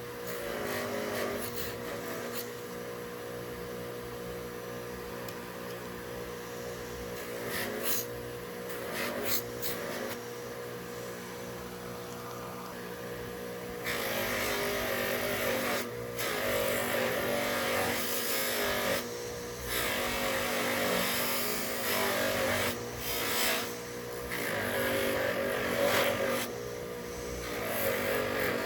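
A motor running steadily, with louder rushing noise that comes and goes from about halfway.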